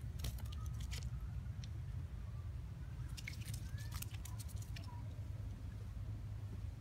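Scattered sharp clicks and scrapes of a long-tailed macaque's hands and feet on tree bark as it climbs, bunched near the start and again around the middle, over a steady low rumble, with a few faint short chirps.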